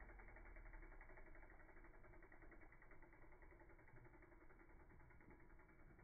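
Near silence: a faint, steady low background hum.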